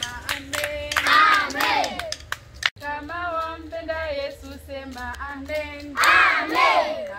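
A group of worshippers' voices shouting out together twice, about a second in and again about six seconds in, with a single voice calling or singing between the shouts: a call-and-response of praise.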